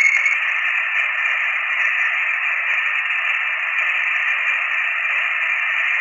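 Voyager 1's recording from interstellar space, converted into audio: a steady hiss like radio static, with a faint thin high tone above it. Some scientists attribute the sound to plasma waves.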